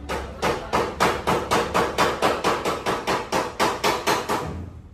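Hammer beating out a damaged car body panel: a fast, even run of metal blows, about four a second, stopping shortly before the end.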